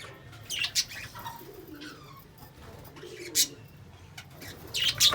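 Lovebirds chirping: sharp, shrill chirps about a second in, again past three seconds and loudest near the end, with softer, lower calls in between.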